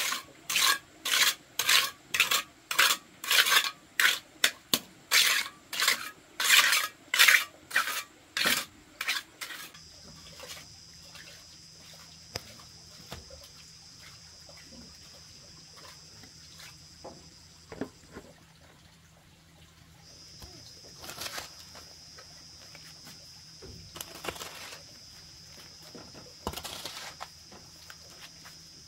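A small hand tool scraping across a wet mud floor in quick rhythmic strokes, about two a second, which stop about ten seconds in. After that it is much quieter, with a few faint scrapes of a hoe in the wet mud near the end.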